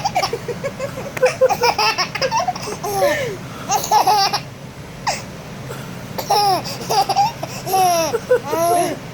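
Baby laughing in high-pitched giggling bouts, with a short lull about halfway through.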